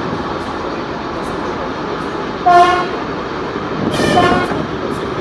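Two short locomotive horn toots about a second and a half apart, the first the louder, over the steady running din of a TEP70 diesel locomotive on the move.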